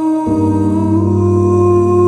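Background music of slow, held notes. A deeper bass layer comes in about a quarter second in, and the melody steps up in pitch about a second in.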